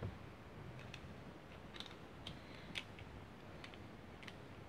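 Faint, irregular small plastic clicks and taps from handling a toy sonic screwdriver at its battery compartment, about a dozen spread unevenly.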